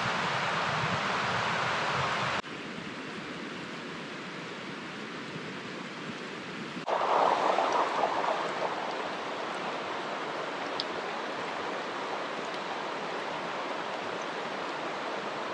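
Flood-swollen river rushing steadily. The level drops abruptly about two seconds in. It swells louder for a second or two about seven seconds in.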